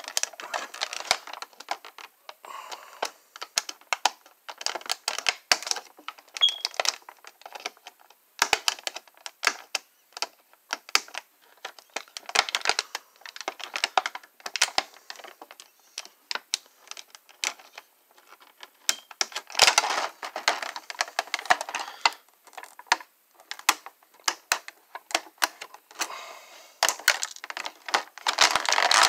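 Stiff clear plastic packaging tray being handled and cut with scissors: irregular crinkling and crackling with many sharp clicks and snips, louder for a stretch about two-thirds of the way through.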